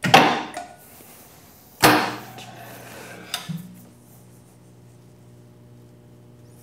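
Electromagnetic sheet-metal brake being worked: two loud metal clanks about two seconds apart and a lighter knock about halfway through. A steady low hum sets in with the second clank.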